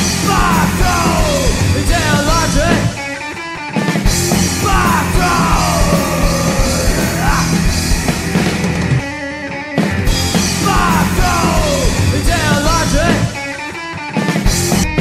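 Loud punk-style rock music: a full band with lead lines that bend up and down in pitch, dropping back briefly three times.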